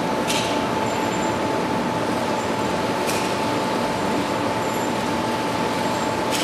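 Steady rushing background noise with a faint constant hum, and three faint light clicks about three seconds apart; no shots are fired.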